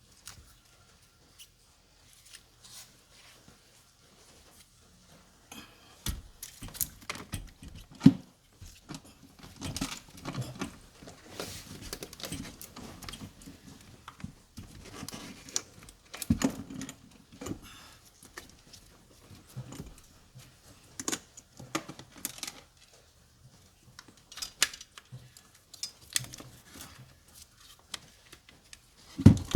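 Irregular clinking, rattling and knocking of hand tools and metal parts being handled during a car battery replacement, with a sharp knock about eight seconds in and a louder thump near the end.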